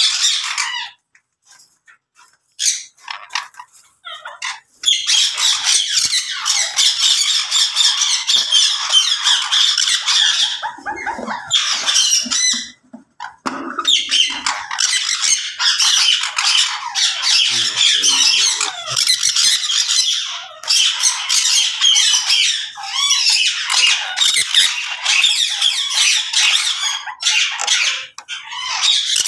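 Many caged parrots squawking and chattering at once, their shrill calls overlapping almost without a break, with a brief lull about halfway through.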